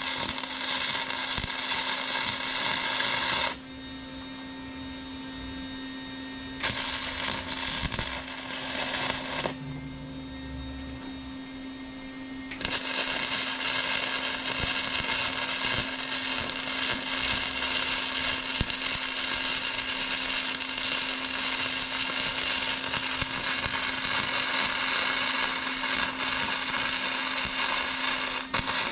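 Electric welding arc crackling in three runs: two short ones of about three seconds each, then a long continuous bead from about twelve seconds in, over a steady low hum.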